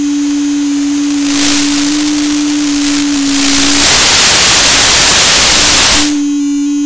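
A steady electronic tone from an analog FPV radio downlink, stepping slightly up and down in pitch. About four seconds in it is drowned out for some two seconds by loud static hiss as the link loses signal, then the tone returns.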